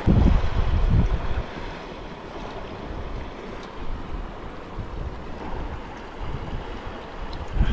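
Wind buffeting the microphone, strongest in the first second and a half, over a steady wash of surf and shallow water.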